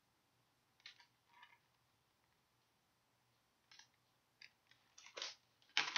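A picture book's paper pages being turned and handled: a few short, soft paper rustles, the loudest near the end.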